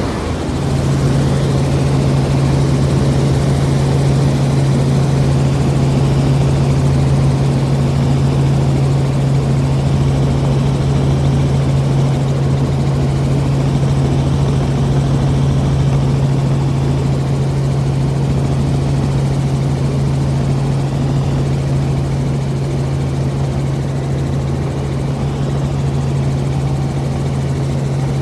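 Helicopter in flight: a steady drone of rotor and engine, with a strong low hum that sets in just after the start.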